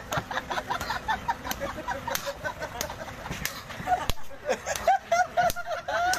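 Sharp slaps of a hand striking a person, coming irregularly a few times a second, over a busy chattering of birds.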